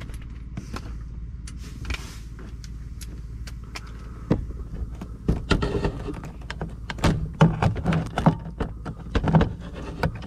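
Irregular clicks, taps and knocks of tools and hardware on a truck's metal visor mounting brackets, starting about four seconds in, over a low steady hum.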